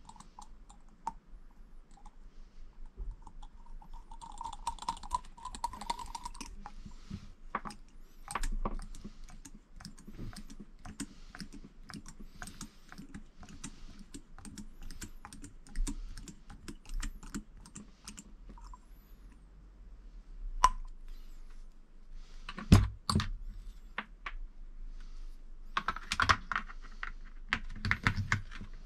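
Irregular light clicks and taps of small plastic and metal RC car parts and wiring being handled and fitted on the chassis, with a brief squeak about five seconds in and a few louder knocks near the end.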